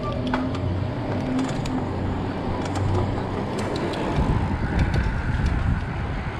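Wind buffeting the action camera's microphone and tyre noise from a mountain bike rolling on asphalt, a fluctuating low rumble with scattered light clicks and rattles from the bike.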